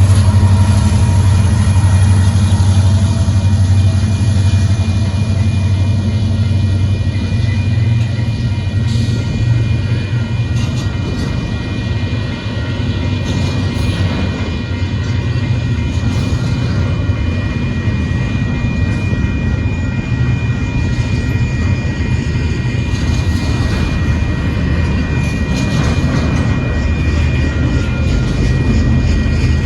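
Union Pacific intermodal freight train rolling past close by: a steady, loud low rumble of the cars on the rails, with a thin steady high whine and scattered clicks through the second half.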